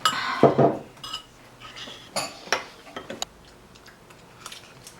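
Dishes and metal cutlery clinking and knocking: a clatter in the first second, then a few separate knocks.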